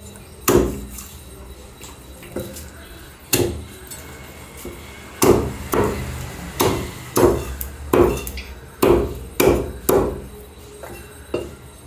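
Butcher's cleaver chopping through a whole chicken onto a wooden tree-trunk chopping block: about a dozen heavy chops, spaced out at first and coming quicker, roughly two a second, in the second half.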